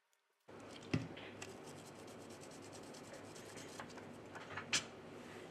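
Steel reballing stencil being wiped clean with a tissue and isopropyl alcohol and handled on a paper napkin: soft rubbing starting about half a second in, with scattered light clicks, one sharp about a second in and a louder one near the end.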